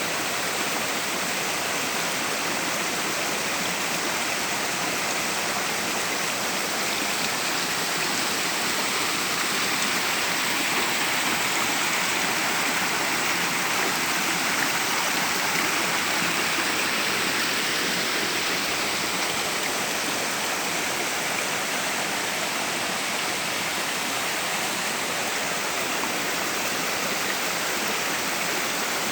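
Waterfall rushing: a steady, dense roar of falling and splashing water.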